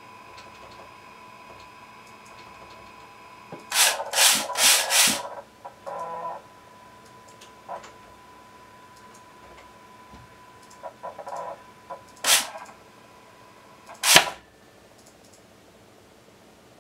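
Linear servo motor axis making a series of short, fast moves of its carriage along the rail, each a brief loud rush of noise: four in quick succession about four seconds in, a few quieter ones after, and two more loud single ones near the end. A faint steady high whine from the servo runs under the first part.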